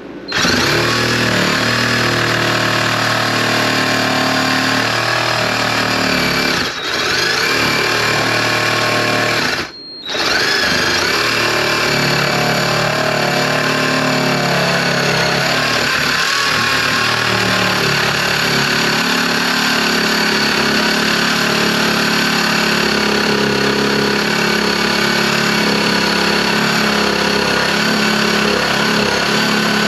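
Cordless power tool running steadily as it cuts into the wall along a marked outline, with a motor whine. It briefly stops twice, about seven and ten seconds in.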